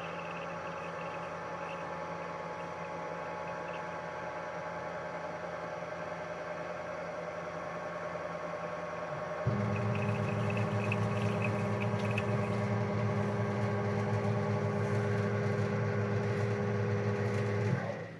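Machine-shop motors running steadily. About halfway through, a louder, lower hum starts suddenly, like a milling machine's motor or spindle switched on, and it cuts off shortly before the end.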